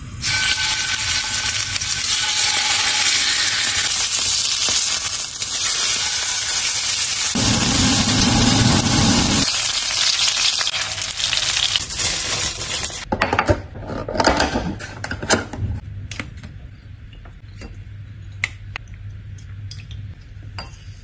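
Steak searing in a steel pan: a loud, steady sizzle of fat frying. It cuts off abruptly a little past halfway, leaving a quieter stretch of scattered light clinks and taps.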